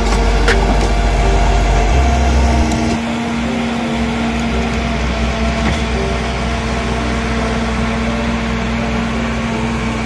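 Small crawler bulldozer's diesel engine running steadily as it pushes sand, a deep rumble with a constant hum. The lowest rumble eases about three seconds in.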